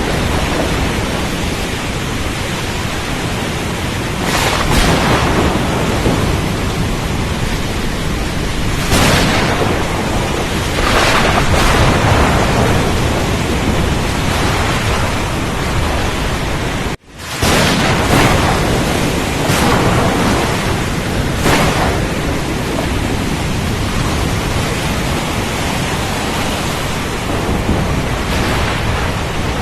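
Storm at sea: a steady heavy roar of rain and wind under low rumbling, with louder surges swelling every few seconds. The sound cuts out abruptly for a split second about 17 seconds in.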